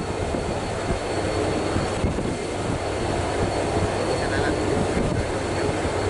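Steady low rumble of a ship's engines at sea, even and unbroken.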